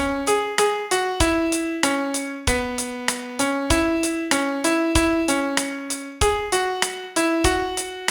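Piano playing a slow melody of single notes over regular low bass notes, each note struck and dying away.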